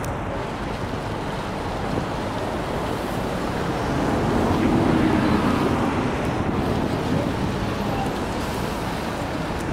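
Steady outdoor rushing noise: the swollen river swirling past the bridge pier, mixed with wind on the microphone and traffic. It swells for a couple of seconds about midway.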